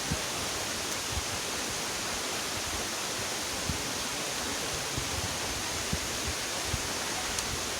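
Steady rushing of falling water from a waterfall, an even hiss with no rhythm, with a few soft low thumps scattered through it.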